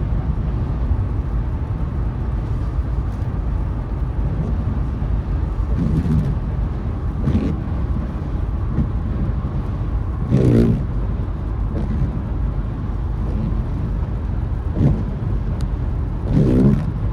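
Windscreen wiper blades of a 2024 Mercedes-Benz GLE squeaking across the wet glass: several short squeaks a few seconds apart, the loudest about ten seconds in, over steady road noise inside the cabin. The squeak is a recurring wiper fault that repeated workshop repairs have not cured.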